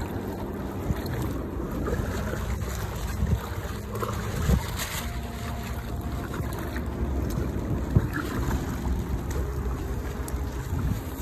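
Wind buffeting the microphone aboard a small sailing kayak, a steady rumbling rush, with a couple of sharp knocks about halfway and near the end.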